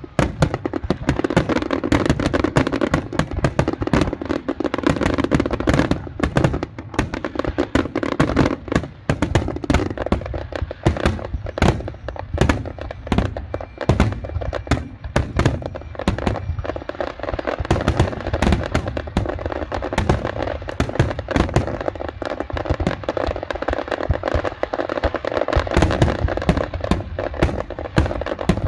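Fireworks display: a dense, continuous barrage of bangs and crackles, many bursts a second.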